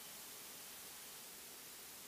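Faint steady hiss between radio transmissions, the background noise of the recorded ATC audio feed, with no voice or engine sound.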